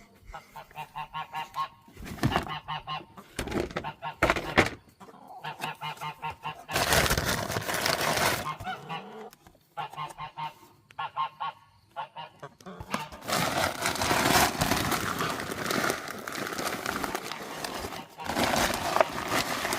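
Two domestic geese honking in runs of short, quick calls as they are brought in to be fed, with longer noisy stretches of rustling between the calls.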